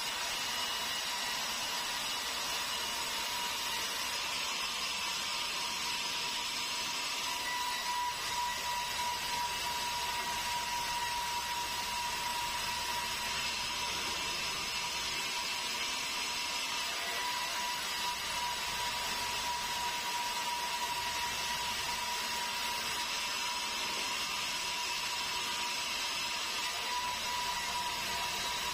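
Sawmill band saw cutting a Meranti log: a steady rushing noise with a steady high tone running through it, the tone clearer from about seven seconds in.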